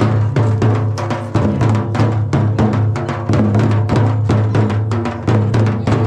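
Traditional Jharkhandi drums, a hand-played mandar and a large stick-beaten drum, playing a fast, driving dance rhythm of many strokes a second over a steady low hum.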